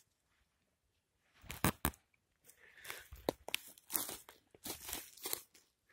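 Dry forest-floor litter of pine needles and twigs crunching and rustling in short, irregular bursts as it is disturbed, starting about a second and a half in with a couple of sharp clicks.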